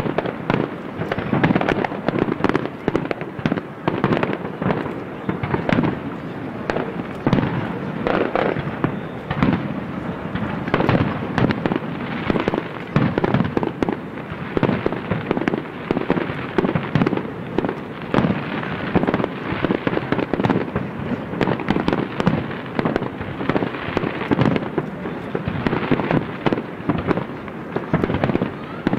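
Fireworks bursting in a rapid, unbroken barrage, many bangs in quick succession overlapping one another.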